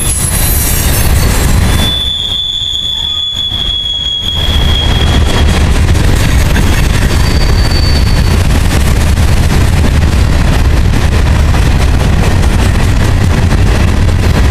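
Freight train of covered hopper cars rolling past close by: a steady heavy rumble and clatter of steel wheels on rail. About two seconds in a wheel squeals on one steady high note for a few seconds, and a shorter, higher squeal follows near eight seconds.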